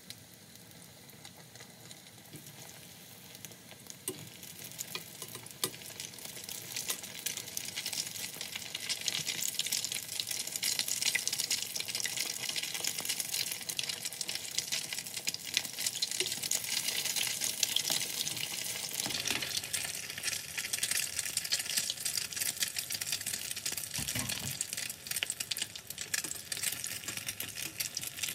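Breaded pollock croquettes deep-frying in hot oil in a stainless saucepan: a dense crackling sizzle that builds up over the first ten seconds or so and then holds steady, with a couple of dull bumps in the second half.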